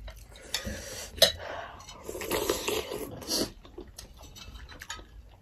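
Metal forks and spoons clinking and scraping against ceramic plates and bowls while eating, with a sharp clink about a second in.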